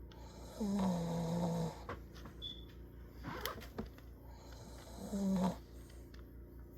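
Dog snoring in its sleep: a longer pitched snore about half a second in, dropping slightly in pitch over about a second, and a shorter one about five seconds in.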